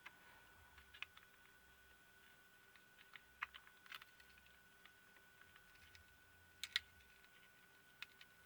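Faint, scattered small clicks and taps from handling the projector's small plastic and metal parts during disassembly, with a louder close pair of clicks about two-thirds of the way through.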